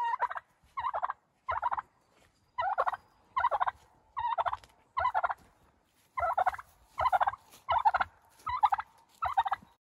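A domestic tom turkey gobbling over and over: about a dozen short, rattling gobbles, one roughly every 0.8 seconds.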